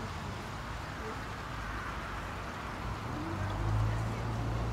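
Steady outdoor background noise. About three seconds in, a low, steady mechanical hum comes up and holds.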